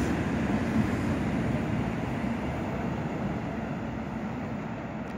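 An N700-series Shinkansen train rumbling steadily as it runs out of the station along the platform, the sound fading gradually as the train draws away.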